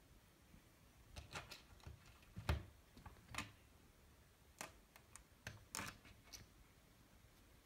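About a dozen faint, sharp clicks and taps at irregular intervals, with one heavier knock about two and a half seconds in.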